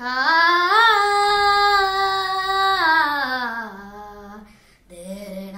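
A boy singing unaccompanied: a long held vocal note that rises about a second in, holds, then slides down and fades, and near the end he begins the next phrase on a lower note.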